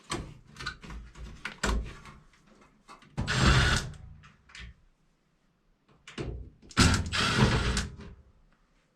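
Plastic and metal parts of a washing machine being handled and pulled loose: scattered clicks and knocks, with two longer scraping slides, about three seconds in and again about seven seconds in.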